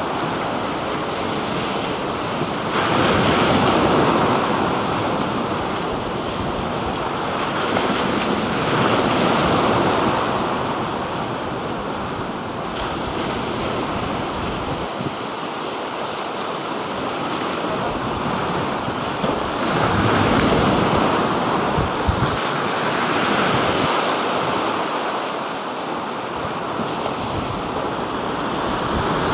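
Black Sea surf washing in, a steady rush of water that swells and ebbs as each wave breaks every several seconds, with some wind on the microphone.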